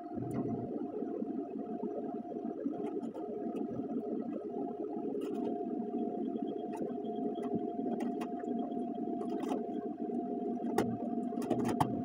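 Heat gun's fan running steadily with a thin, constant whine, under scattered light clicks and rustles of vinyl wrap film being handled.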